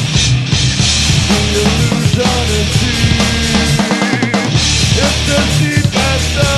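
Heavy punk-metal band playing live in rehearsal: drum kit, bass and electric guitars together. The bass and kick drop out for a moment about four seconds in.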